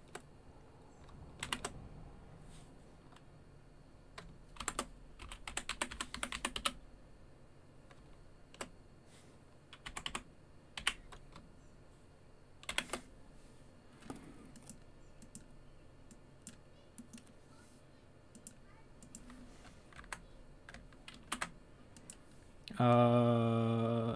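Scattered light clicks of typing on a keyboard, with a quick flurry of clicks about five seconds in. Near the end a short, loud low vocal sound that falls in pitch.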